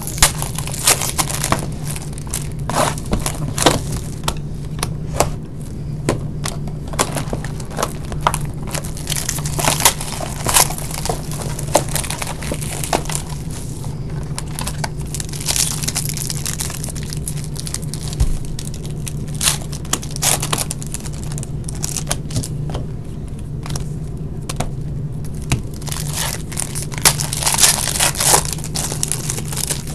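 Trading-card pack wrappers crinkling and tearing as packs are opened and cards handled: irregular crackles and clicks over a steady low hum.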